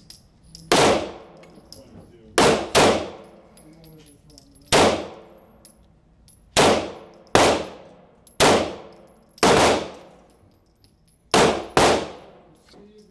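Ten 9mm pistol shots fired at an uneven pace, some as quick pairs about half a second apart, each followed by a long echoing decay.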